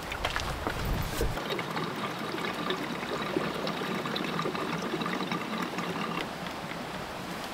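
Fuel pouring from a fuel can's spout into a small tank's filler neck, a steady trickle that begins after a brief handling thump about a second in.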